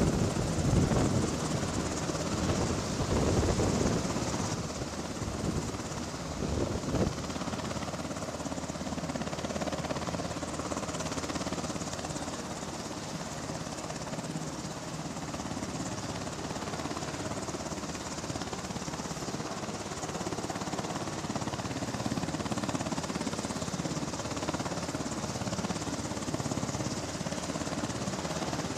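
UH-60 Black Hawk helicopter running on the ground with its main rotor turning: a steady turbine and rotor noise. Wind gusts buffet the microphone during the first few seconds.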